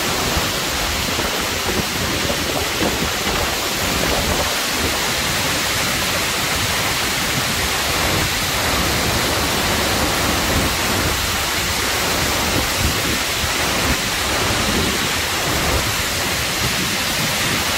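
Tall mountain waterfall and the whitewater torrent below it, a steady, loud rush of falling and churning water without a break.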